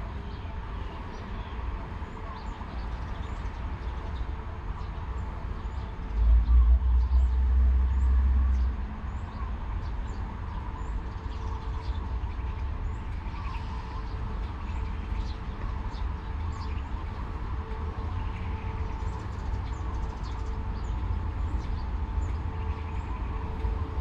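Diesel train engine idling with a steady low rumble and hum, with a louder low rumble for about two and a half seconds around six seconds in. Small birds chirp repeatedly over it.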